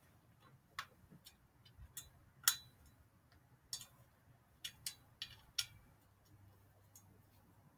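Scattered sharp metal clicks and taps, irregularly spaced, from a tool working on a bike's seat clamp as it is tightened.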